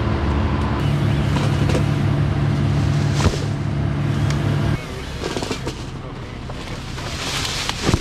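A motor runs with a steady hum, then cuts off abruptly a little over halfway through. After it, a few scattered knocks and one sharp, loud crack near the end as limbs are taken off a cottonwood.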